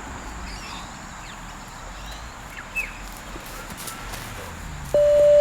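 Beep test recording's level-change signal: an electronic beep tone held for nearly a second near the end, marking the end of a level as level 7 begins. Before it there is a quieter background with a faint short chirp about three seconds in.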